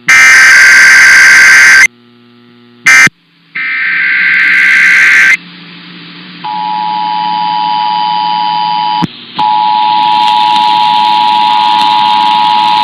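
Emergency Alert System test signal: three loud bursts of SAME digital header data tones, then the two-tone attention signal, a steady dual tone just under 1 kHz (853 and 960 Hz), that starts about six and a half seconds in and cuts out briefly around nine seconds in.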